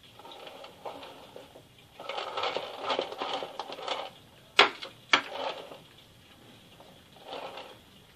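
Metal spatula scraping and spreading meringue, scooping it from a glass dish. About halfway through come two sharp taps of the spatula against the dish.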